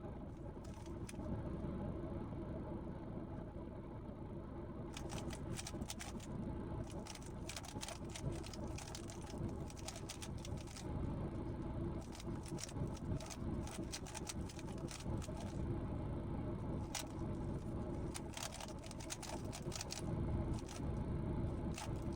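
3x3 Rubik's cube being turned during a blindfolded solve: a quick, irregular stream of plastic clicks that starts about five seconds in, over a steady low rumble.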